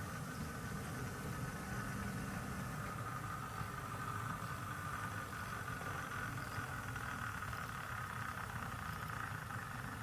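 Model railway locomotive running with a steady mechanical engine-like hum and low rumble.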